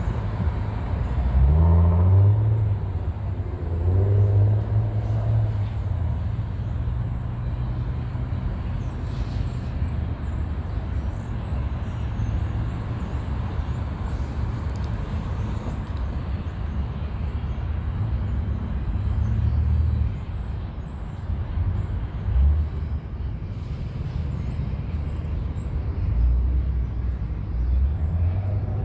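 Wind gusting against the microphone: a low, uneven rumble that swells and drops, over a fainter steady rush.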